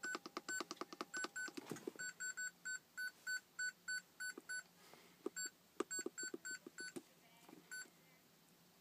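Handheld diagnostic scan tool beeping as its buttons are pressed: many short, identical high beeps, each with a faint key click, in quick irregular runs of up to about three a second, then one last beep near the end.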